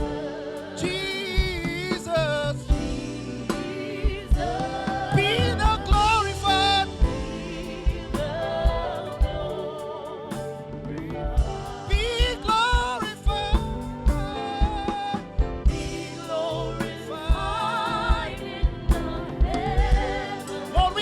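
Live gospel worship music: a sung voice in wavering, drawn-out phrases over sustained chords, with frequent drum hits.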